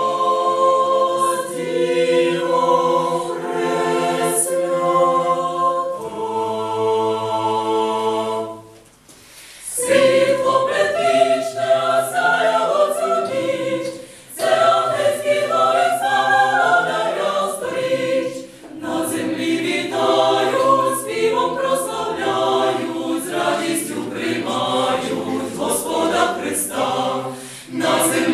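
Mixed choir of women's and men's voices singing a Christmas carol a cappella. Long held chords give way, after a short break about nine seconds in, to a livelier passage with moving voice parts.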